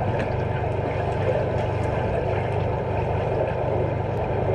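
Underwater pool sound picked up through a submerged camera: a steady low hum and dense hiss, with scattered faint clicks and taps from players moving through the water.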